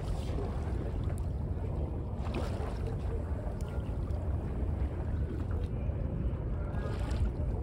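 Wind buffeting the microphone over water washing against the hull of a sailing yacht under way, with a few faint splashes.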